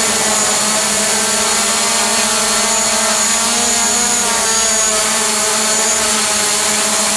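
DJI Mavic Pro quadcopter hovering a few feet away on its standard propellers, a steady whine of several even tones over a rushing hiss from the spinning props.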